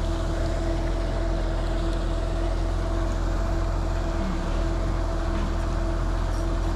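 Steady motor hum at one unchanging pitch over a constant low rumble.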